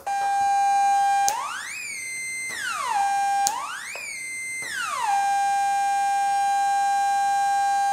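littleBits Korg synth oscillator holding a steady note, its pitch swept by an Arduino-generated ADSR envelope. Twice it glides quickly up (attack), dips slightly to a held sustain (decay), then glides back down to the resting pitch when the trigger button is released.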